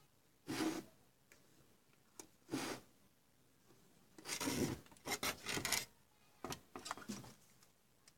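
Fingers rubbing and scraping over motherboard parts, in a string of short bursts, with a longer run about halfway through.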